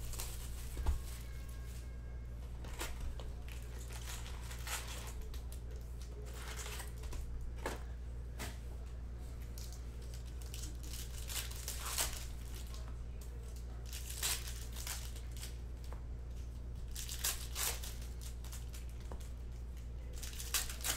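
A 2020 Panini Mosaic football card box is torn open, then the card pack wrappers crinkle and rip open, in irregular crackles with several sharper tears. A steady low hum runs underneath.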